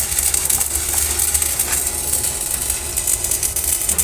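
Stick-welding arc on a steel pipe joint, crackling and sizzling steadily as the rod burns, over a low steady hum.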